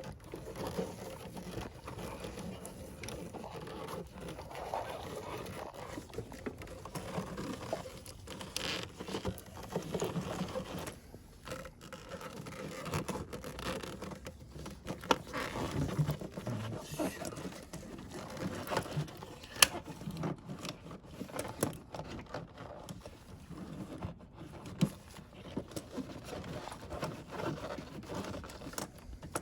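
Hands working among parts in a cramped engine bay: irregular scraping, rubbing and light clicking of plastic and metal pieces, with one sharp click about two-thirds of the way through.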